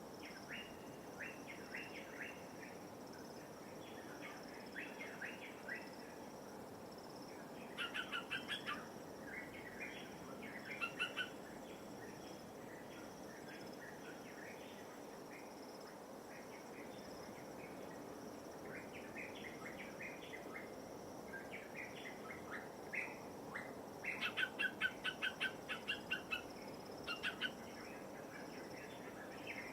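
Birds chirping in quick runs of short, clipped notes, the longest and loudest run coming near the end. Under them is a steady low wash of light waves and a constant thin, high insect drone.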